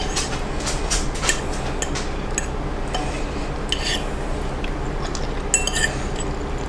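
Fork clicking and scraping against a plate during eating, in scattered short strikes over a steady low background hum.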